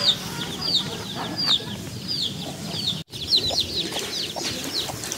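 Chickens calling: a run of short, high, falling notes about every two-thirds of a second, with a brief break about three seconds in, after which the notes come quicker.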